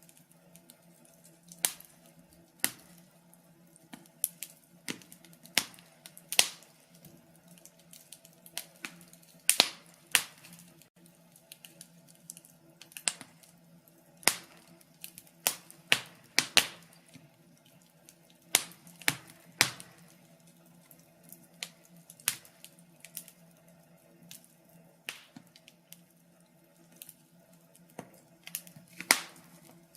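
Wood fire in a fireplace crackling and popping, with sharp snaps at irregular intervals, a few of them louder, over a faint steady low hum.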